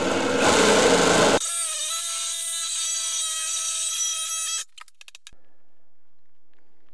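Cordless reciprocating saw with a metal-cutting blade cutting through a metal closet rod: a loud rattling buzz for about a second and a half, then a steady high whine for about three seconds that stops abruptly, followed by a few light clicks.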